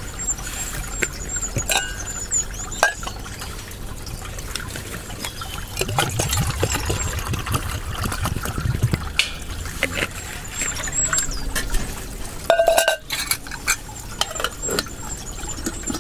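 Water poured from a plastic bottle into a metal camping mug, filling it over a few seconds. Sharp metal clinks come as the mug and its lid are handled, with a cluster near the end as the lid goes on.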